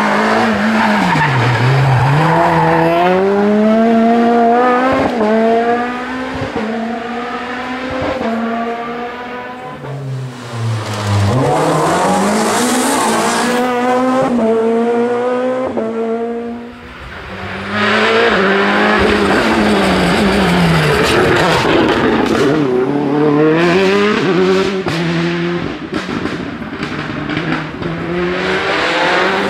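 Rally car engines at full throttle on a stage, revving up through the gears and falling back on lift-off and downshifts, over and over, with tyre noise on the loose surface.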